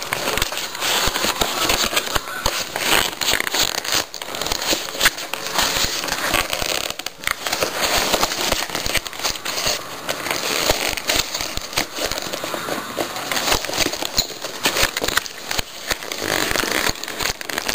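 Packaging being handled during an unboxing: dense, irregular crackling and crinkling of plastic and cardboard.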